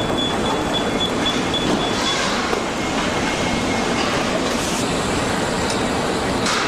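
Car assembly line factory-floor noise: a steady din of machinery and conveyors, with a high electronic beeping for about the first two seconds, a short high tone about three seconds in, and a couple of sharp clicks near the end.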